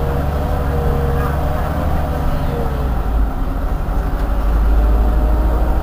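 Irisbus Iveco Citelis 18 articulated city bus standing with its diesel engine idling, a steady deep hum.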